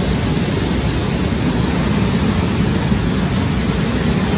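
A pack of racing go-kart engines running together as the karts lap the track, a steady, loud drone inside a large arena hall.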